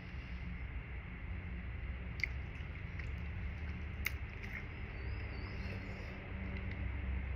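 A person chewing a mouthful of spaghetti on toast, with a few sharp clicks about two and four seconds in, over a steady low hum.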